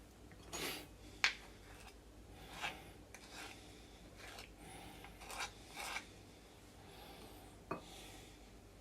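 Kitchen utensil scraping cake batter out of a mixing bowl into a small lined baking tin: a series of short, faint scrapes and rubs.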